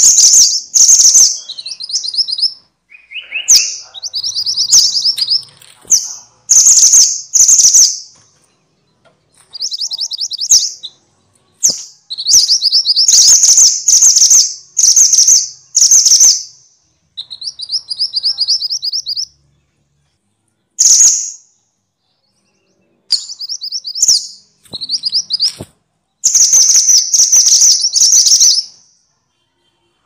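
Minivet calling: loud, high, rapid trills in phrases of about one to two seconds, some made of quick falling notes, repeated with short pauses and a silent gap of about two seconds past the middle.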